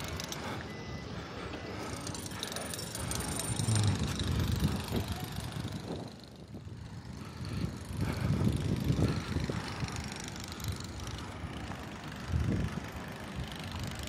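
Rattling of distant construction machinery, a breaker hammer on a nearby site, under open-air ambience with irregular low rumbling swells about four, eight and twelve seconds in.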